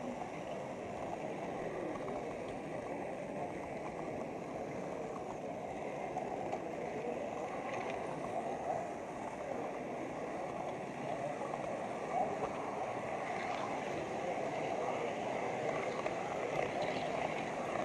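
Steady rolling rumble of a model railway wagon's wheels on the track, picked up by a camera riding on the wagon, with indistinct chatter of people in the hall behind it.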